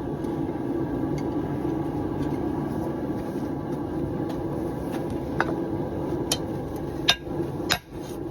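Hand hammer striking a thick piece of hot steel: a few light taps, then three loud blows in the last two seconds, over a steady roar.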